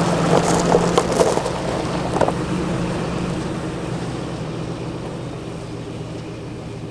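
Pickup truck engine running with a steady low hum that slowly grows quieter, with a few light knocks in the first two seconds or so.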